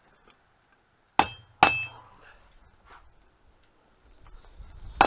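Hammer blows on steel at the anvil, each with a bright metallic ring: two quick strikes about a second in, and one more at the very end.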